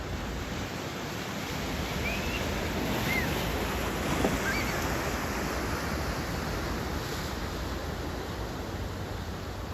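Surf breaking and washing in, the waves a little high from a typhoon's swell, swelling to a peak about four seconds in, with wind buffeting the microphone. A few faint short high chirps sound over the surf.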